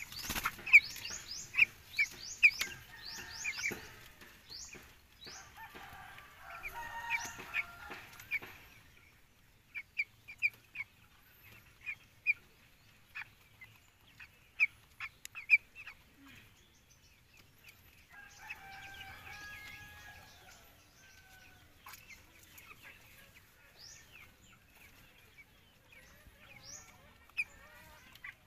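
A flock of young broiler chickens peeping, with many short high cheeps coming in quick runs at the start and again in the middle. A few lower, longer calls come about a quarter and about two-thirds of the way in.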